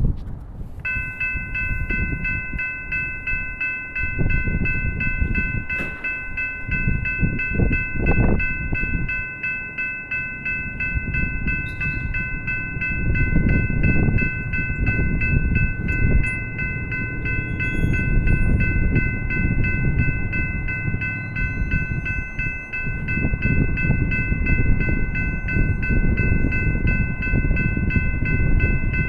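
Electronic level-crossing bell starts about a second in and rings on with a rapid, steady repeating ding, over a low rumble of wind on the microphone.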